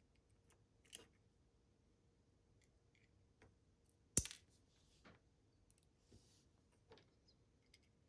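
Small screwdriver and plastic key-fob casing clicking as a tiny screw is worked: a few faint scattered clicks and one sharp click about four seconds in.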